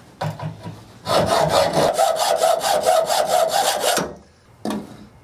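Hacksaw cutting steel rebar with quick, even back-and-forth strokes, a rasping with a steady ringing tone from the metal. The sawing stops suddenly about four seconds in, and a single knock follows.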